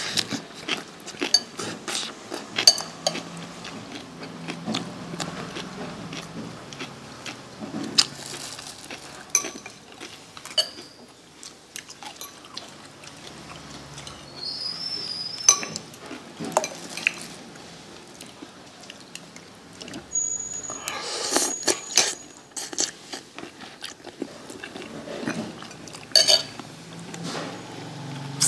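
A metal spoon clinking and scraping against a bowl of noodle soup while eating, in scattered sharp clicks, a few of them ringing briefly.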